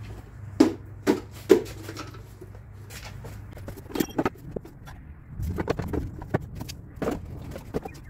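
Chrysler PT Cruiser four-cylinder engine idling with a steady low hum. Over it come several sharp plastic knocks and clicks as the air filter is set in place and the airbox lid is fitted back on.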